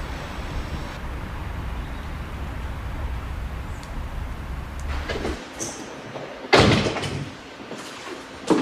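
A steady low rumble of outdoor ambience that stops about five seconds in, then a door shutting with a loud bang, followed by a single sharper knock near the end.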